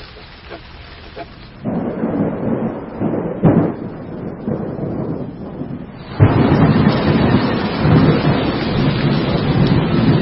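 Thunderstorm: rain hissing, then thunder rumbling from just under two seconds in, with a sharp crack near the middle. A sudden, louder peal of thunder comes about six seconds in and carries on with heavy rain.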